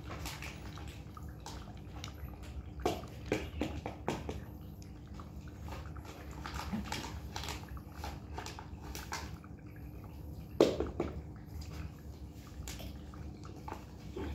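Small clicks, rustles and taps as wet cat food pouches are handled and squeezed into plastic bowls while cats eat from them, with one sharper knock about ten seconds in.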